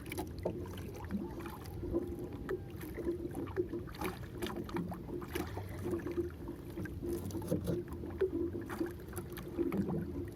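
Water lapping against a small fishing boat's hull, with a steady low hum underneath and scattered light knocks and clicks.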